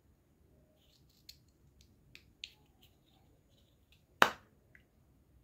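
Light clicks and taps of small red plastic magic-trick hat toys being handled and fitted together, then one sharp click a little past four seconds in as the pieces snap together, followed by a softer tick.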